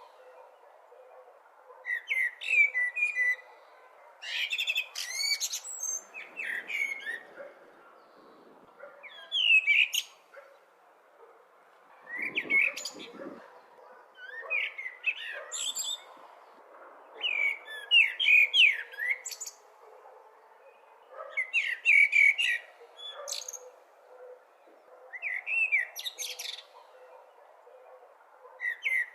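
A blackbird singing: about ten separate phrases, each a short run of warbling notes that ends in higher, squeaky notes, with pauses of a second or two between them, over a steady faint background hiss.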